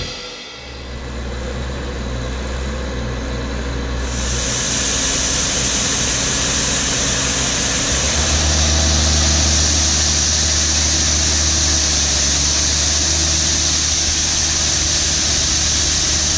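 A machine's engine running steadily at a constant speed, a low hum with a strong hiss over it that steps up about four seconds in.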